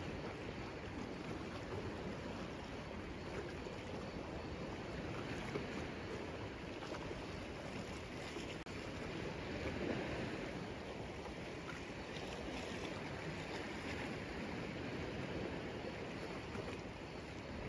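Steady rush of moving water, like surf or waves washing, swelling briefly about ten seconds in.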